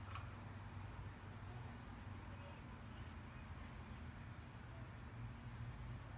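Faint outdoor ambience: short, high insect chirps every second or two over a low, steady rumble.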